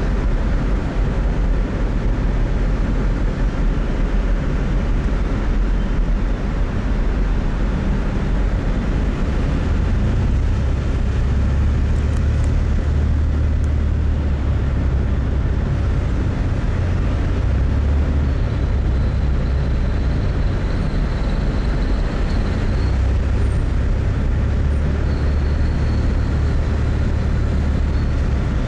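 Steady road and traffic noise heard from inside a car driving through a highway tunnel, with a strong low rumble. A faint high tone comes and goes in the second half.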